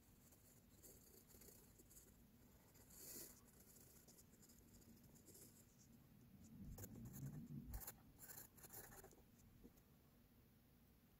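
Faint pencil scratching on paper in short quick strokes as a signature is written, loudest and densest a little past the middle, with a few low knocks among the strokes.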